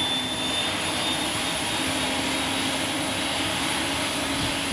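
Aircraft turbine engines running steadily: a broad rushing noise with a thin high whine that sinks slightly in pitch and fades, over a low hum.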